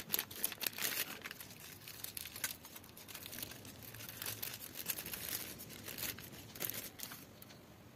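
Thin plastic packaging bag crinkling and rustling as hands handle it and slide a pair of sunglasses out of it. The sound is made of irregular crackles, busiest at the start and again in the second half.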